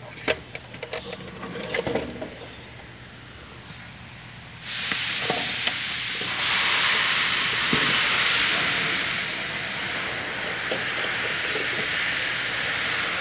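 Light clicks and knocks as a plastic fuel pump assembly is handled and lowered into the fuel tank opening. About four and a half seconds in, a loud, steady hiss starts abruptly and covers the rest.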